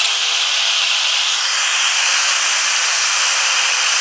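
Bernzomatic TS8000 hand torch burning with a loud, steady hiss as its flame heats a steel file.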